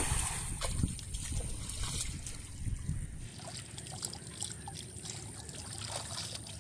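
Water trickling and dribbling, with a low rumble that drops away about three seconds in.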